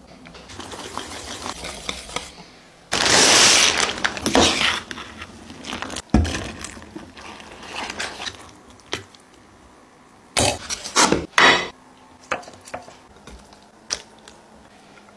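A metal spoon stirring and scraping macaroni through thick cheese sauce in a stainless steel saucepan, in several short spells, with a few sharp clinks of metal on the pot.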